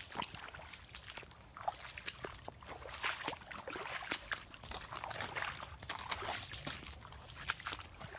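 Footsteps through wet, storm-soaked ground and debris: irregular scuffs, crunches and splashy swishes, with a faint steady high whine behind them.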